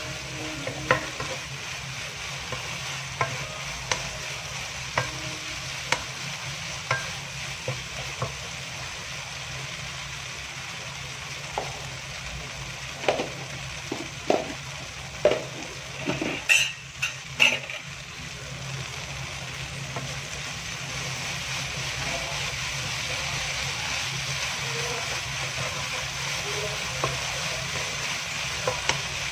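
Okra stir-frying in a nonstick wok on a gas stove: a steady sizzle, with a wooden spatula stirring and scraping and scattered sharp taps on the pan, most of them clustered near the middle.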